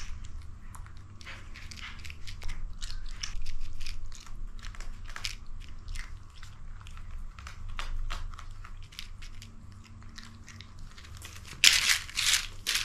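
Cats chewing dry kibble: a run of many small, crisp crunches. A little over a second before the end comes a short, louder scuffling burst as the cats move suddenly.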